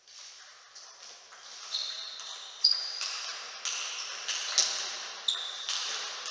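Table tennis rally: the plastic ball striking the table and the players' rubber-faced bats in turn, each hit a sharp ringing tock with a short echo, about two to three hits a second. It starts with the serve and grows louder as the rally builds.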